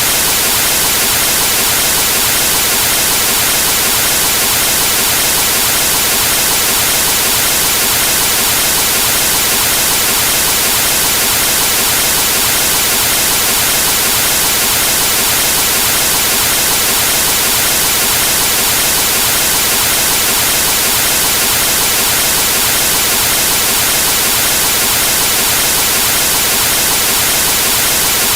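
Television static: the steady, loud white-noise hiss of a TV tuned to a dead cable channel, unchanging throughout.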